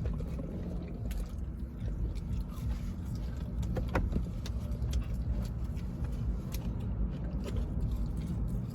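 Steady low rumble of a car, with scattered small clicks and taps on top.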